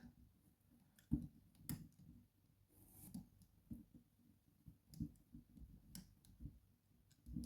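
Faint, irregular metallic clicks of a lock pick working the inner pins of a Mul-T-Lock interactive padlock, a handful of separate ticks spread over several seconds as the picker feels for a binding pin.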